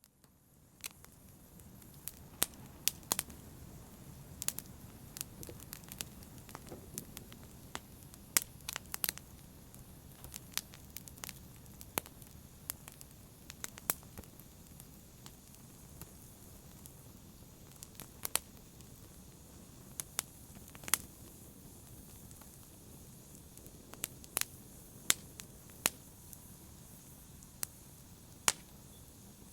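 Wood fire in a fireplace crackling: irregular sharp pops and snaps over a low, steady rush of burning. It rises out of near silence over the first second or two.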